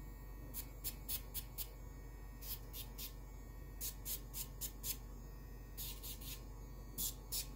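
Handheld pet nail grinder (a 'dog Dremel') running with a steady hum. It is broken by short gritty scratches each time the spinning drum touches a puppy's claw, in groups of three to five touches every second or two.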